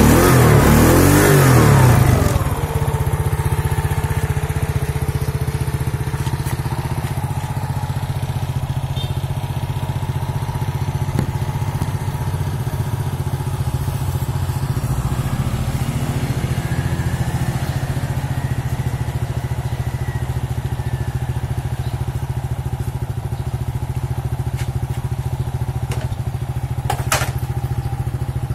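Honda Astrea Grand Impressa's 100 cc single-cylinder four-stroke engine blipped on the throttle for about two seconds, then dropping back to a steady idle. A couple of sharp clicks sound near the end.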